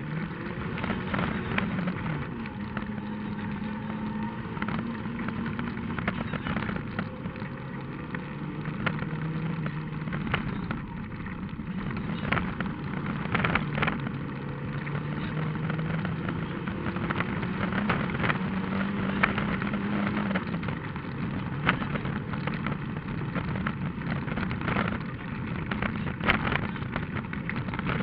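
Rally car's engine running hard on a dirt stage, its note holding and then stepping up or down several times with gear changes, under frequent sharp knocks from stones and ruts hitting the car.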